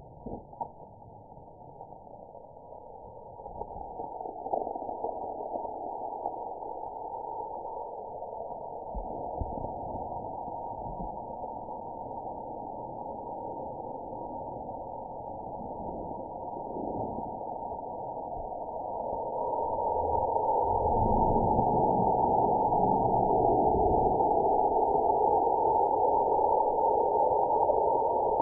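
A punctured soda can spraying, heard slowed down with the slow-motion footage as a low, muffled rushing noise that grows louder over the last third.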